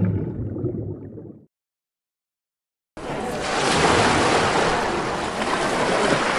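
A low rumble fades out, and after a second and a half of silence the sound of a beach cuts in about three seconds in: waves washing on the shore as a steady rushing noise.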